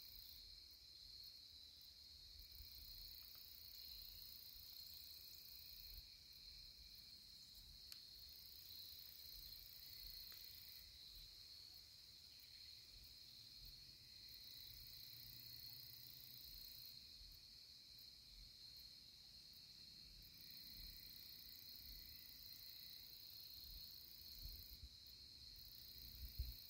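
Faint steady chorus of crickets and other insects, a continuous high trill, with a second, higher-pitched insect buzz that starts and stops every few seconds. A faint low rumble sits underneath.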